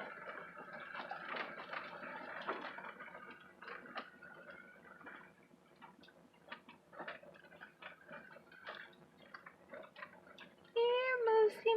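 Irregular clicks, taps and knocks of a car creeping over a rough dirt trail, stones and twigs popping under the tyres with small rattles. About a second before the end a person's drawn-out voice comes in, louder than the rest.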